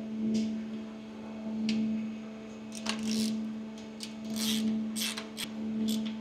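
Scattered short metallic clicks and scrapes as the oil drain plug is fitted into a PW1100G engine's lubrication unit. Under them runs a steady hum that swells and fades about every second and a half.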